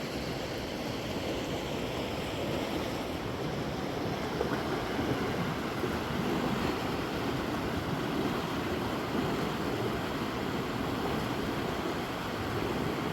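A river rushing steadily: an even wash of flowing water.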